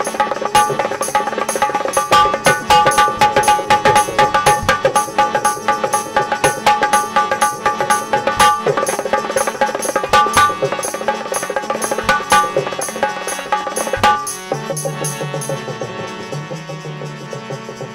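Instrumental interlude of a devotional song: harmonium and keyboard melody over fast, steady hand-drum percussion. About 14 seconds in the drumming stops, leaving held notes that slowly fade.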